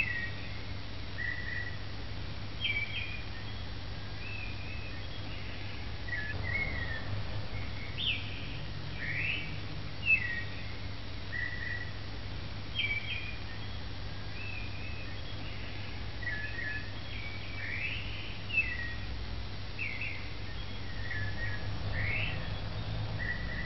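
Birds chirping and calling in short, varied notes, many times over, above a steady low hum.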